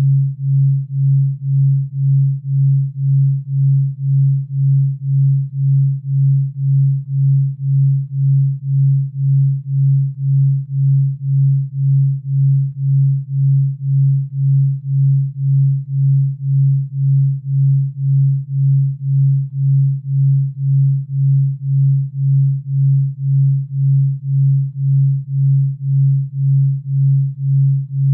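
Low pure tone from a delta-wave sleep audio track, throbbing evenly about one and a half times a second. The pulse rate lies in the delta-wave range meant to induce deep sleep.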